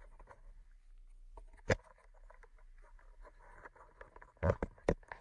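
A few sharp knocks and light taps: one about a second and a half in and a quick couple near the end, over a low steady room hum.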